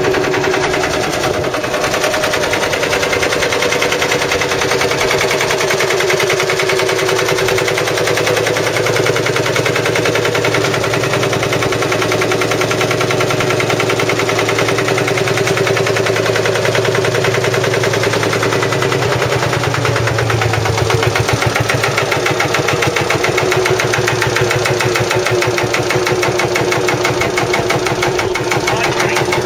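Field Marshall tractor's single-cylinder two-stroke diesel idling out of gear, a steady, even beat from the engine and exhaust.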